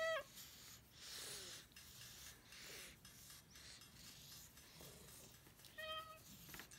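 A sick cat's noisy breathing, a breath about once a second, as a hand rubs the fur of its face. A short meow right at the start and another about six seconds in.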